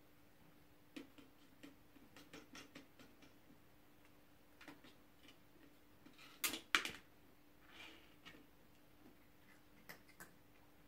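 Dry kibble clicking and rattling in a tiered plastic puzzle-feeder tower as a cat paws and noses at it: a scatter of light clicks, with a louder rattle about six and a half seconds in.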